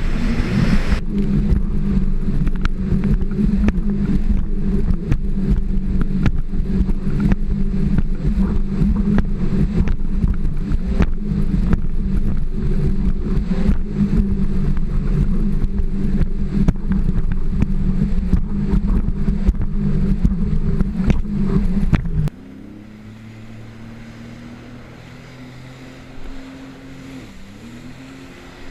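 Jet ski running at speed, with heavy wind buffeting on the microphone over the engine and water. About 22 seconds in the loud noise cuts off suddenly, leaving a quieter, steady engine drone whose pitch dips briefly a few seconds later.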